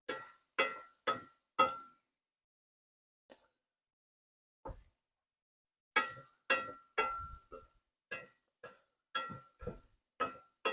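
A metal utensil clinking repeatedly against a metal cooking pot, each knock ringing at the same pitch: four knocks, a pause, then a faster run of about two knocks a second.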